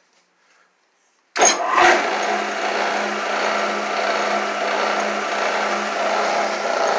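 A 12 V DC worm-gear motor of a home-made drill-press power feed, switched on through its PWM speed controller, starts abruptly about a second and a half in and then runs steadily with one constant tone under a broad mechanical noise.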